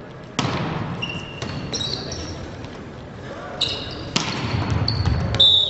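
Volleyball rally on an indoor hardwood court: a sharp hit of the ball on the serve about half a second in, short high squeaks of shoes on the floor, and another hard hit of the ball around four seconds in, each hit ringing in the big hall.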